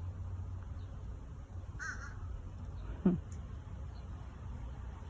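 Crows cawing: a faint caw about two seconds in, then a louder call falling in pitch about a second later, over a steady low rumble.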